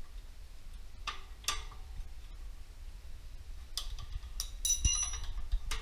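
Metal hand tools clicking and clinking against the fasteners of a walk-behind tractor's gas tank as its nuts are undone: a handful of separate sharp clicks, one about five seconds in ringing briefly.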